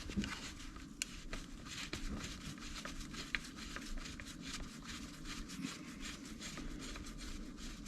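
Faint rapid light clicking and small metal handling noises of a hand tool backing screws out of the motorcycle's carburetor cover, with a couple of sharper ticks.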